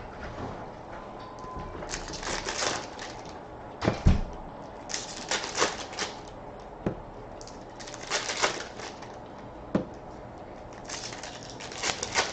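Hockey card packs being torn open and their wrappers crinkled and rustled, in four short bursts of crackling, with a few sharp knocks of cards or hands on the table, the loudest about four seconds in.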